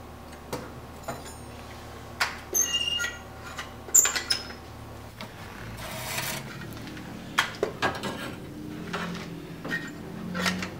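Steel tongs clinking and clanking against the steel blade and an electric heat-treating kiln: a series of sharp metallic knocks, a few of them ringing briefly. A steady low hum stops about five seconds in.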